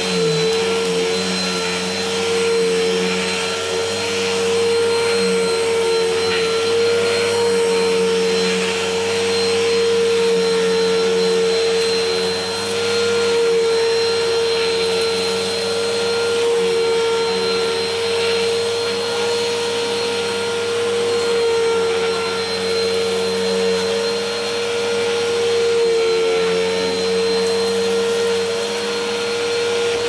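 Bissell Helix upright vacuum cleaner running on carpet, its motor holding one steady humming pitch with a hiss of airflow over it. The loudness swells and dips slightly as it is pushed back and forth.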